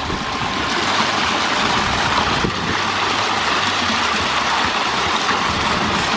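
Fountain's ring of vertical water jets splashing into the basin, with water spilling over the stone edge: a steady rushing splash.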